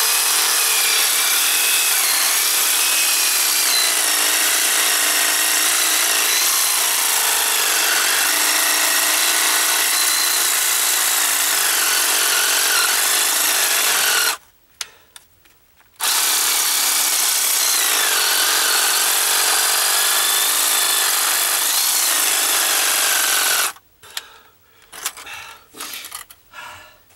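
Cordless reciprocating saw (Sawzall-type) with a short metal-cutting blade sawing into a steel foundation bolt, scoring it rather than cutting it through. It runs steadily for about fourteen seconds, stops briefly, then runs again for about eight seconds and stops, followed by a few faint knocks.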